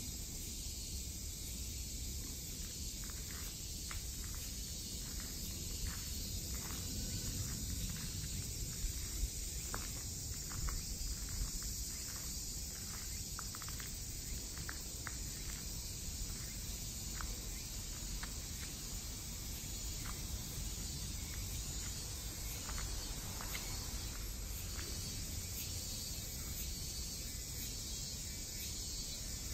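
Outdoor ambience of insects keeping up a steady high hiss over a low rumble, with a run of light footsteps through the first half.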